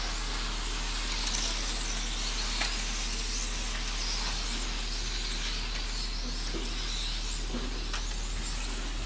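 Several electric 1/10-scale radio-controlled racing cars running laps together, their motors making high-pitched whines that rise and fall as they accelerate out of and brake into the corners.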